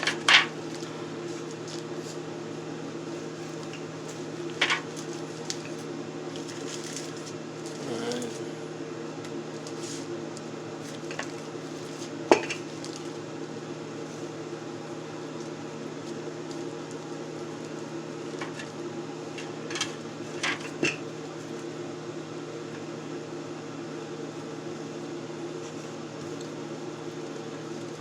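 Scattered clinks and knocks of kitchen dishes and utensils being handled, the sharpest about twelve seconds in, over a steady hum from a kitchen appliance.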